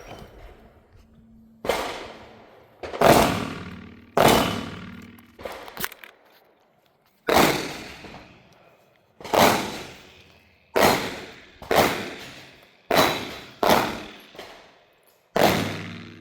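A string of about ten gunshots from a .410 revolver shotgun, fired one to two seconds apart, each a sharp crack with a fading echo.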